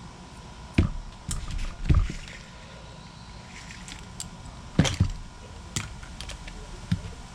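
Handling noise from a small lock part and tools being picked up and set down: about six separate knocks and clicks, the loudest about five seconds in, over a faint steady high hum.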